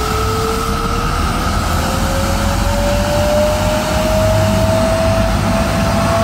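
Isuzu mechanical broom sweeper truck running its cleaning gear: a loud, steady drone and hiss with a low rumble, and a whine that rises slowly in pitch throughout.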